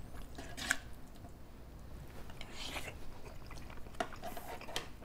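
Soft chewing and mouth sounds of someone eating chili and rice, with a few light clicks and a scrape as a plastic spoon scoops rice off a sheet tray near the end.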